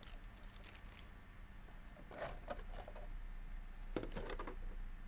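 Thin clear plastic wrapping crinkling and rustling in a few short spells as it is handled and pulled off a figure, about half a second, two seconds and four seconds in.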